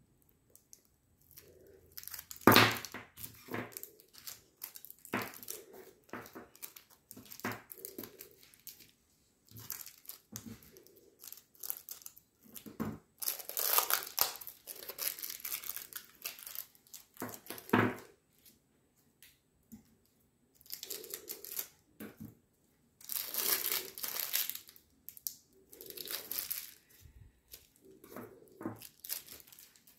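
Clear plastic lollipop wrappers crinkling and tearing as they are peeled off hard-candy lollipops, in irregular bursts with short pauses. There is a sharp crackle about two and a half seconds in, and the longest, loudest rustling comes about halfway through and again near the three-quarter mark.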